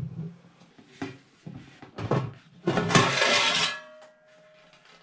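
Aluminium steamer-pot lid being handled on the pot: a few short metal knocks about a second apart, then a louder clatter and scrape against the rim about three seconds in, followed by a faint ringing.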